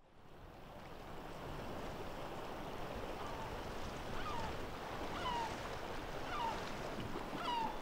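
Steady wash of sea surf fading in at the start, with short falling chirps about once a second from about three seconds in.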